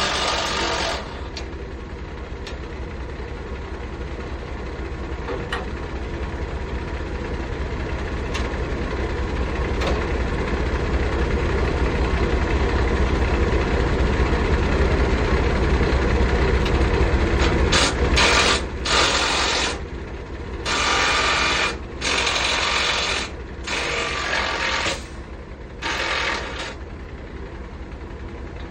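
Diesel engine of a 2018 Peterbilt truck idling steadily, while a power wrench runs in short bursts of about a second each, several times in the last third.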